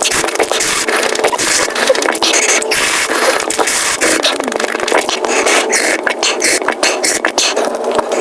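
Mukbang eating sounds sped up about fivefold: a dense, fast run of crunching and chewing clicks.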